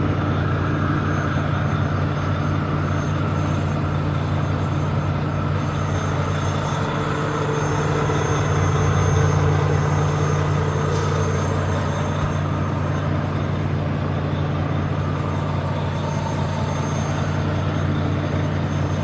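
Truck engine running steadily with an even low drone, a little louder about midway.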